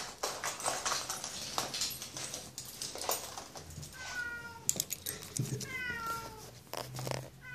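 A domestic cat meowing behind a closed front door, two meows in the second half, each falling in pitch. Before them comes a run of sharp clicks and rattles.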